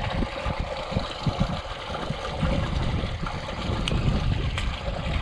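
Water pouring from an outlet pipe into a concrete basin: a steady splashing rush, with wind buffeting the microphone in low gusts.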